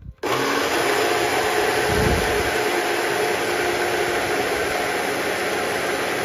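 Koenic personal smoothie blender running steadily, blending frozen strawberries, banana and milk; it starts with a click about a quarter second in as the jar is pressed down.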